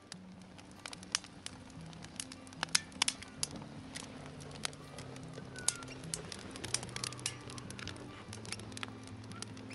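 Wood fire crackling in a metal fire pit, with irregular sharp pops, a few loudest about three seconds in, over background music with slow low notes.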